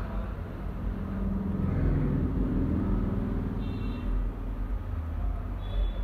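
Steady low background rumble, like engine or traffic noise, with a low hum that rises and gets louder about two seconds in.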